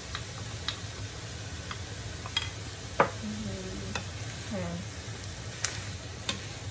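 Wooden spatula scraping chili paste from a small glass bowl with sharp clicks and knocks, the loudest about three seconds in, then stirring rice in a non-stick frying pan with a faint sizzle, over a low steady hum.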